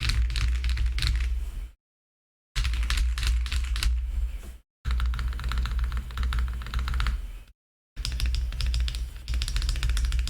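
Fast typing on a mechanical keyboard with lubed KTT Sea Salt Lemon linear switches and PBT keycaps: a dense run of clacking keystrokes, broken three times by brief total silences between takes, over lofi background music with a steady bass.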